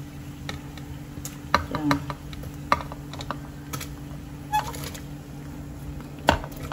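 Chunks of pineapple picked off a ceramic plate by hand and dropped into a pot of hot water: scattered light clicks and taps, with a sharper knock about six seconds in, over a steady low hum.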